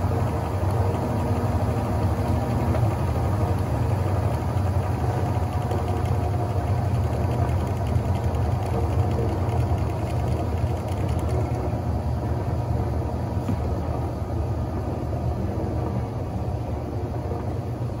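Brastemp Ative BWL11 top-load washing machine in its spin, the basket full of wet clothes whirling at speed with a steady motor hum, getting a little quieter in the second half. This is the spin after the wash, just before the machine refills for the rinse.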